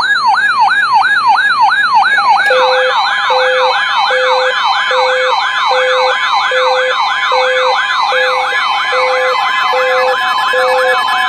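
Electronic siren-type alert tones: a falling yelp repeating about three times a second. About two and a half seconds in, a second, faster yelp and a short low beep join it, the beep repeating a little faster than once a second. The alarm goes off as a severe thunderstorm warning comes in.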